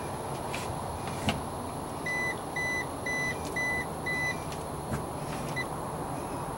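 Garmin GPSmap 178C Sounder chartplotter beeping five short even beeps, about two a second, as it powers up and shows a water temperature alarm. A single click comes about a second in.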